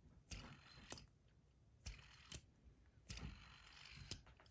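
Faint, scattered clicks and knocks of small metal fidget spinners being handled and set down, about six light taps spread over a few seconds.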